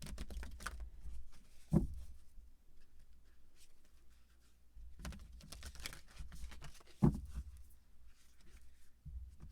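Tarot cards being shuffled by hand: bursts of quick flicking and fluttering card noise, with two dull thumps about five seconds apart.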